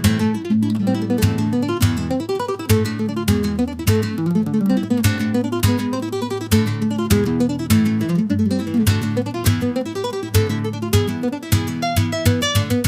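Background music: acoustic guitar, plucked and strummed in quick, dense notes over a steady low bass line.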